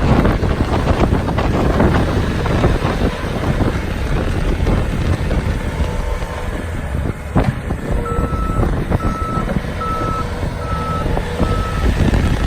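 Skid steer loader's engine running steadily, with a sharp knock about seven seconds in. About a second later its backup alarm starts, a series of evenly spaced high beeps as the machine reverses.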